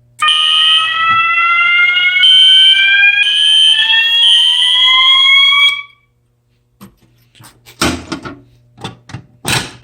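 Fire alarm horns sounding together after the Fire-Lite BG-12 pull station is pulled: a slowly rising sweep tone with a high, piercing tone over it. The alarm lasts about five and a half seconds, then cuts off suddenly as the system is silenced. A few clicks and knocks follow while the pull station is reset.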